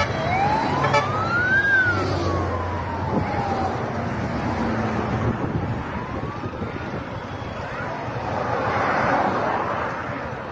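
Siren on a passing motorcade vehicle wailing in one slow rise and fall in the first few seconds, with a fainter second wail about six seconds in, over the engine and tyre noise of vehicles going by at speed. A rushing noise swells near the end as another vehicle passes.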